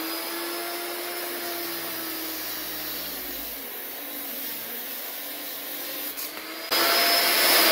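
Large electric angle grinder running steadily with a high whine. About seven seconds in it turns suddenly louder and harsher, and its pitch begins to fall right at the end.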